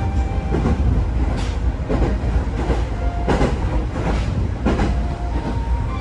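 Interior sound of an electric commuter train running at speed: a steady low rumble with rhythmic clacks of the wheels over rail joints, a little under one and a half a second.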